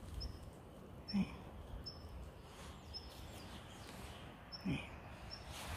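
A bird chirping faintly in the forest, a short high note repeated about once a second over steady low outdoor background noise, with a couple of brief soft low sounds about a second in and near the end.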